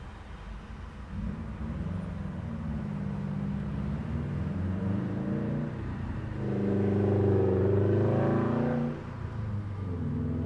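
Motor vehicle engines pulling through an intersection. One gets louder about six seconds in, its engine pitch rising a little as it accelerates, then falls off suddenly about nine seconds in as another engine comes up.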